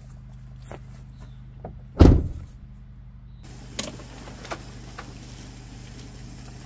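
Steady low hum of a vehicle, with one loud thump about two seconds in and a few faint clicks after it.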